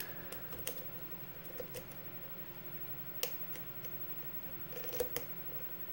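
Lock pick working the pin stack of a custom-pinned lock: a few sparse, faint metallic clicks scattered through, with a pair close together near the end, over a steady low hum.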